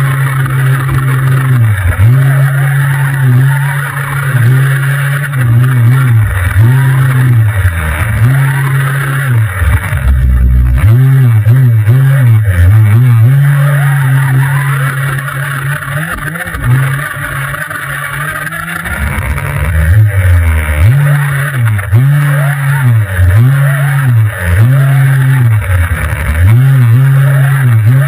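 Motor of a 1:5 scale RC off-road car running hard, its pitch dropping and climbing back again and again, about once a second, as the throttle is worked, over steady hiss from the driving.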